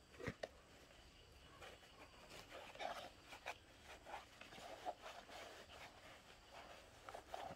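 Faint scratching and rustling of hands pressing and firming potting mix around a papaya cutting in a plastic pot.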